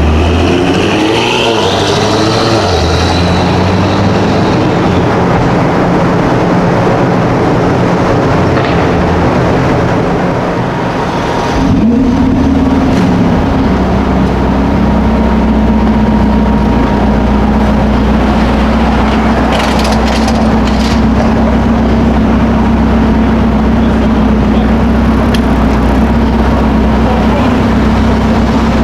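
A car engine running close by, mostly steady. There is some rising pitch in the first few seconds, a brief dip at about eleven seconds, and a change about twelve seconds in, after which it settles into a new steady idle note.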